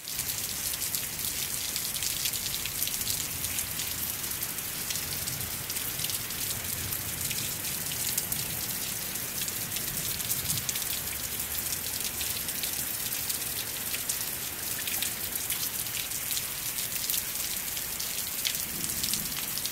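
Steady rain falling on concrete: an even hiss made of many small drop hits.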